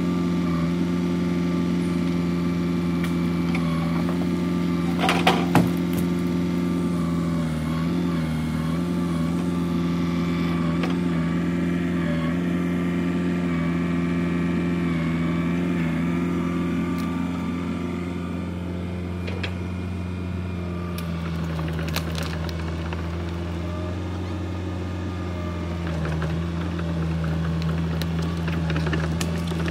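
Hitachi EX120 crawler excavator's diesel engine running steadily under hydraulic load, its pitch dipping slightly as the boom and arm work. A short burst of sharp knocks about five seconds in and a few more knocks around twenty seconds in, from the log and branches being handled.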